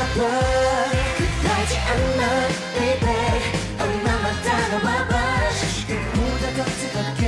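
K-pop dance-pop song sung in Korean, with vocals over a steady electronic beat and bass.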